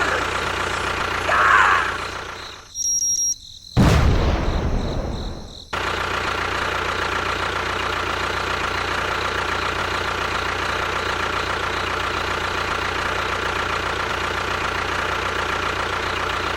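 A steady engine-like running hum, broken about three seconds in by a brief drop and then a loud, deep rumble lasting about two seconds, after which the even hum resumes.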